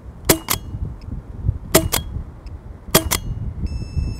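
Empire Resurrection Autococker paintball marker fired three times, slowly, to check its velocity. Each shot is a double crack, two sharp reports about a fifth of a second apart. A short electronic beep follows near the end.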